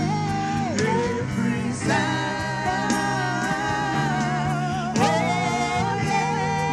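Gospel worship song: a woman singing lead into a microphone, her melody wavering with vibrato, over instrumental backing with a steady percussive beat.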